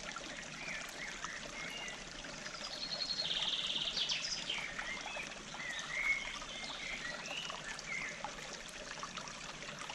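Forest stream flowing and trickling steadily over rocks, with small birds chirping over it; one bird gives a fast trill about three seconds in.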